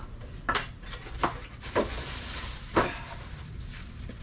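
Four sharp knocks and clinks of metal parts and tools being handled and set down, the first with a short rattle, over a steady low hum.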